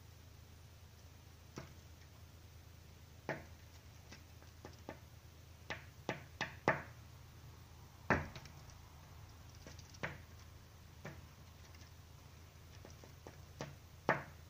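A tit pecking at window glass: about a dozen sharp taps at irregular intervals, with a quick run of four taps about six seconds in.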